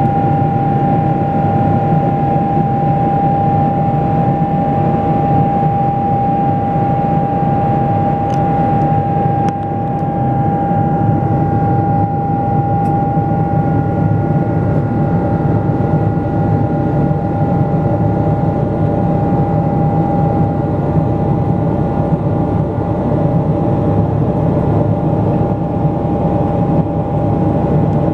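General Electric GE90-115B turbofan of a Boeing 777-200LR in flight, heard inside the cabin ahead of the wing: a loud, steady engine roar with one steady high whine held over it.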